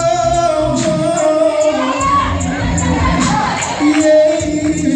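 Gospel choir with band accompaniment: the choir holds one long note, which ends about two seconds in, and then the band carries on under looser voices and crowd sound.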